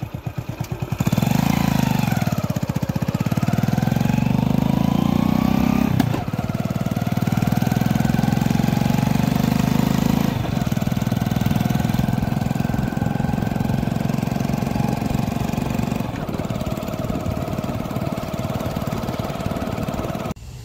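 Motorcycle engine running while riding along a road. It gets louder about a second in, its note rises and falls over the next few seconds, and it changes suddenly about six, ten and sixteen seconds in.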